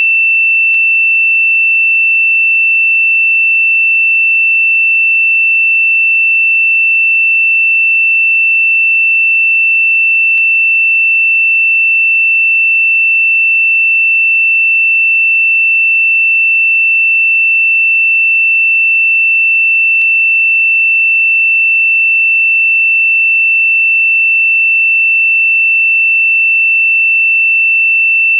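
A single steady, high-pitched pure sine tone held at constant pitch and loudness, with a very faint click about every ten seconds.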